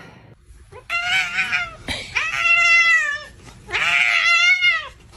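A cat meowing: three long, drawn-out meows about a second each, the pitch bending within each call.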